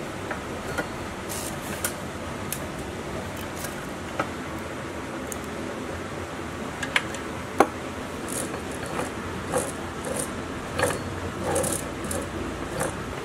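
Metal parts and a wrench clinking and knocking on a diesel engine's cast-iron crankcase as a shaft and gear are fitted into it and a bolt is tightened. Scattered sharp clicks over a steady hiss, the loudest about seven and a half seconds in, coming more often near the end.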